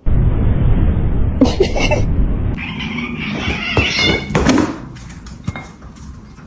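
Cat meowing several times, over a low rumble in the first half.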